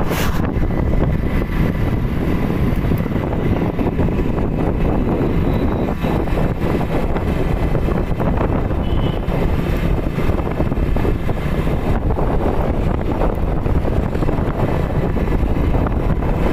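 Motorcycle riding steadily at road speed: a loud, even rush of wind on the microphone mixed with the engine and road noise.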